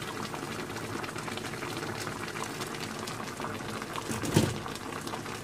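Pot of paksiw na pompano (pompano fish stewing in oil and seasoning) simmering, with a steady fine bubbling and crackling. A single knock about four and a half seconds in.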